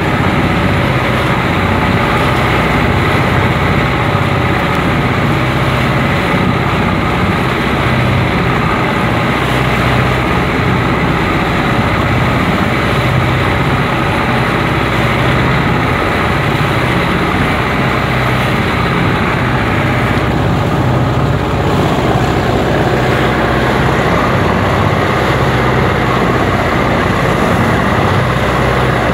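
Fishing boat engine running steadily under way through choppy sea: a constant drone with the rush of water and spray over it.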